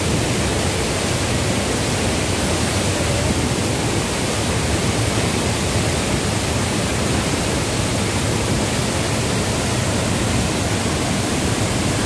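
A waterfall in heavy flow, white water pouring over a wide rock ledge and crashing onto the rocks below: a loud, steady rush of water noise with no breaks.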